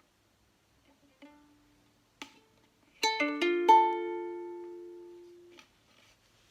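Ukulele D minor chord, its strings plucked one after another in quick succession, then left to ring until it is damped about two and a half seconds later. A faint pluck and a small click come before it.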